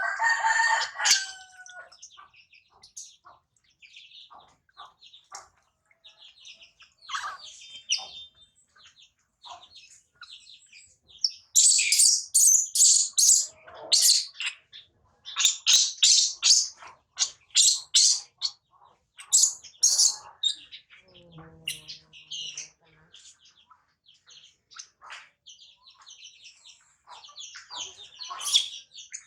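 Rapid, high-pitched chirping calls in repeated bursts, growing much louder about a dozen seconds in.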